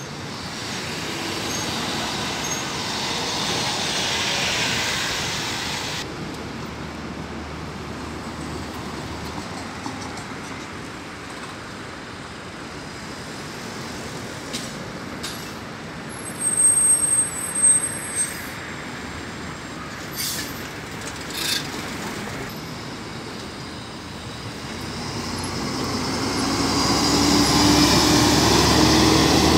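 City buses pulling out of a station exit over steady traffic noise. A bus engine swells as one bus turns out, then short sharp hisses and squeals of air brakes come about halfway through. Near the end another bus engine grows loud as it passes close, its pitch rising.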